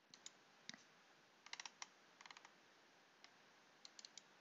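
Faint clicking from working a computer's mouse and keys: single clicks and short quick runs of four or five clicks, several times over.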